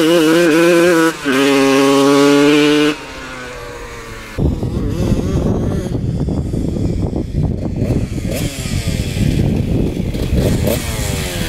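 1993 Honda CR125 two-stroke engine revving hard under load, dipping briefly twice at gear changes, then fading. From about four seconds in it is a rougher, noisier rumble with the engine note rising and falling as the bike comes back. The owner hears a slight breaking-up just before top revs, which he puts down to the carburettor needle position.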